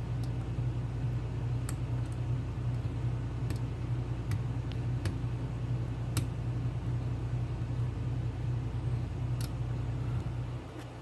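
A lock pick working the pin tumblers of a Lockwood mortise cylinder under tension: scattered light metallic clicks, a dozen or so spread irregularly, as pins are lifted and set. Under them runs a steady low hum that fades near the end.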